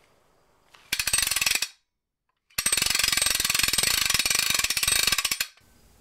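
Ratchet wrench clicking rapidly in two runs, a short one about a second in, then a longer one of about three seconds, with dead silence between: an intro sound effect.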